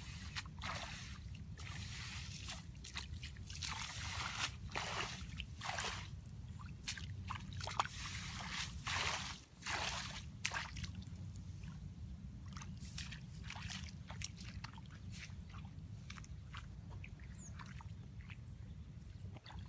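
Water sloshing and splashing in a series of short bursts, denser in the first half, over a steady low rumble.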